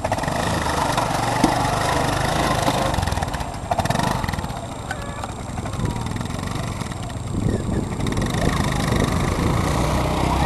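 Linhai 300 ATV's single-cylinder four-stroke engine running as the quad pulls away and drives off.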